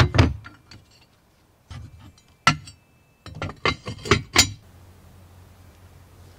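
Ceramic lid and box clinking: sharp porcelain-on-porcelain clinks, a few near the start and a quick run of them about three and a half to four and a half seconds in as the lid is set back on the box.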